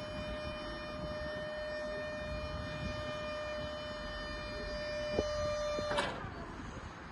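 Electric pallet stacker's hydraulic lift pump motor whining steadily at one pitch, then cutting off with a sharp click about six seconds in.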